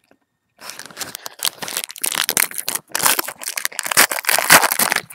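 A 1997 Leaf football card pack's wrapper crinkling and tearing as it is pulled open by hand, starting about half a second in as a dense run of crackles.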